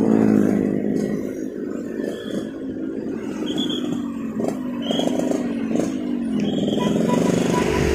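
Motorcycle engine running in slow city traffic, its pitch rising and falling with the throttle, over the hum of other motorcycles and cars around it.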